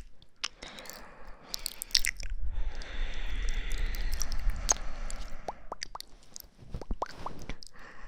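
Close-miked ASMR trigger sounds: soft rubbing and scratching on the microphone with scattered sharp clicks, and a few short wet squeaks in the second half.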